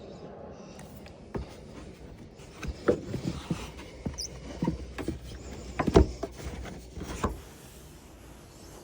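Hands working at a car's interior trim: rustling and scraping with scattered clicks and knocks, the loudest about six seconds in.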